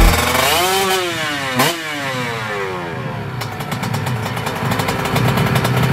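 Kawasaki Ninja two-stroke motorcycle engine being revved. The revs swell up and fall, then a sharp blip comes about a second and a half in, after which they glide down and settle into a steady idle for the second half.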